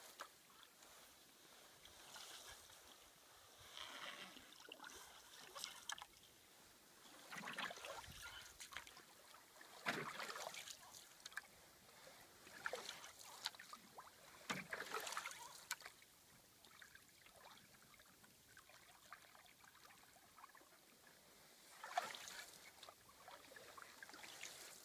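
Faint canoe paddle strokes: the blade swishing through calm lake water with trickling drips, every two to three seconds, with a lull of several seconds in the second half.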